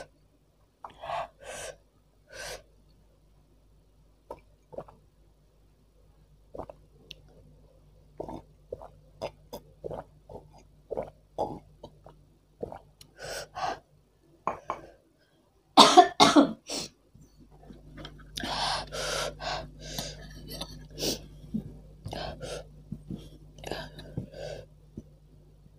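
A woman coughing and clearing her throat, set off by very spicy, hot broth, with the loudest coughing fit about two-thirds of the way in, among short scattered eating noises.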